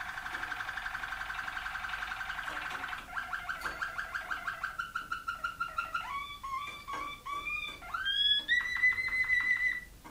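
Waterslager (Malinois) canary singing one unbroken song of trilled tours: a fast even trill, then slower pulsed notes from about three seconds in, then notes stepping up and down, and a higher, faster trill over the last two seconds.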